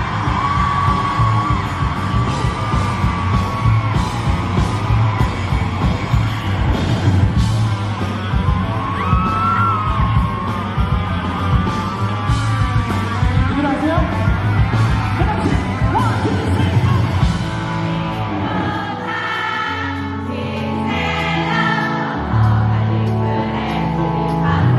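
A pop-rock band playing live, with a sung vocal line over drums, bass and guitar. A little past two-thirds of the way through, the steady drum hits drop away, leaving bass notes and held chords.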